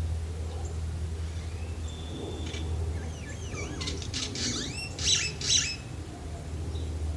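Bird calls: a run of quick high chirps that sweep up and down in pitch, loudest about four to six seconds in, over a steady low rumble.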